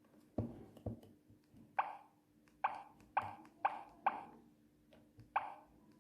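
A Sagem MY-750c mobile phone playing a ringtone through its small built-in speaker: a melody of about eight short notes, each fading quickly, in an uneven rhythm over a faint steady hum.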